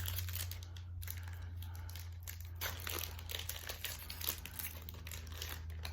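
Foil booster-pack wrapper crinkling and tearing as a trading-card pack is opened by hand, in irregular rustling crackles over a steady low hum.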